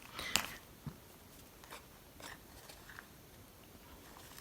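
Small metal clicks and taps of a lock cylinder, shim and tools being handled, the sharpest click about a third of a second in and a smaller one about a second in, then a few faint ticks.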